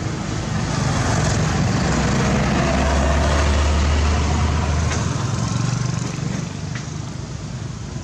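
A road vehicle passing: a rumbling engine and tyre noise that swells from about a second in, is loudest around three to four seconds, then fades.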